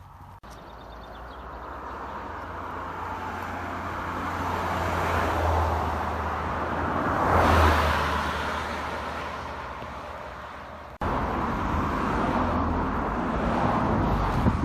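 A car passing by on the road, growing louder to its closest point about seven and a half seconds in and then fading away. After a cut about eleven seconds in, steady road noise.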